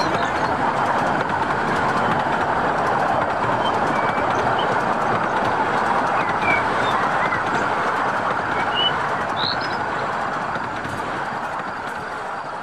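Model train rolling along its track past the camera, a steady running noise that eases slightly near the end as the train moves away, with short bird chirps sounding over it.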